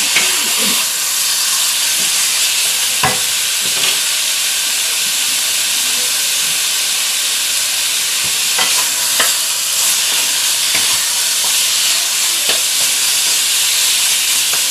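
Chicken pieces sizzling steadily in hot oil in a pan. A utensil clicks against the pan a few times as the chicken is stirred.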